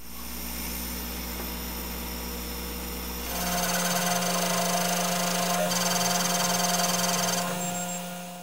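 Laser engraving machine running: a steady mechanical whine made of several held tones, stepping louder about three seconds in and dropping away near the end.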